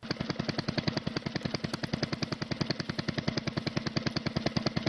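Small engine idling: a rapid, even popping, more than ten pops a second, over a steady low hum.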